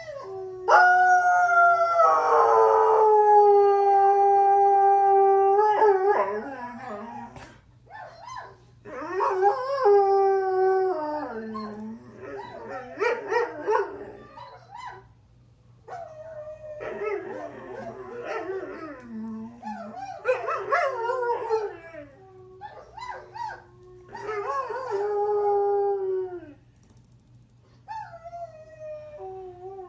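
Greyhound howling: one long, loud howl of about five seconds near the start, then a run of shorter howls that rise and fall in pitch, with short pauses between them.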